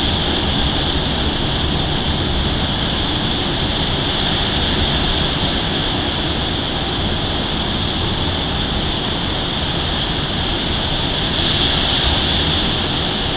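Steady rushing noise of rough sea, swelling slightly about twelve seconds in.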